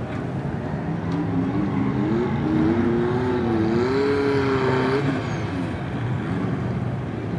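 A car engine revving and accelerating. Its pitch climbs and wavers for about four seconds, dips once along the way, then falls away about five seconds in.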